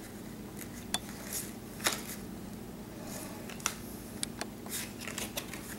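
Baseball cards being slid and flicked against one another as a stack is leafed through by hand: a string of short, irregular rustles and clicks, the sharpest a little under two seconds in.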